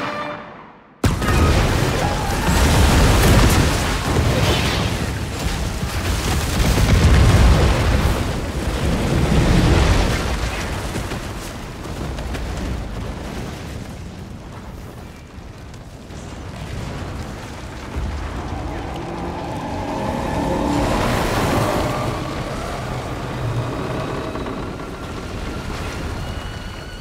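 A film explosion: after a brief hush, a huge blast hits about a second in and runs on as a long, heavy rumble of fire and falling debris that slowly dies down, with the film's music score faintly underneath later on.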